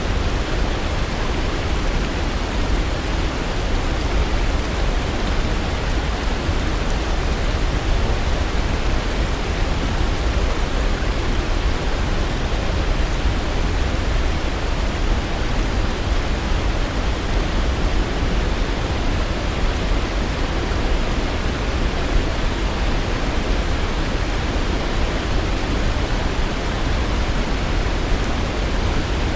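Waterfall: a steady, unbroken rush of falling water, even throughout, with a deep low rumble under the hiss.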